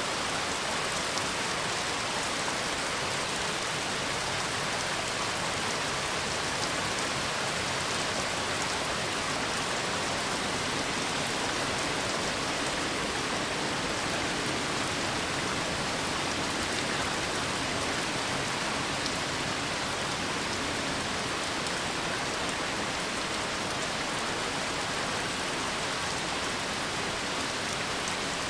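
Steady rain falling, an even hiss with faint patter of drops on a surface.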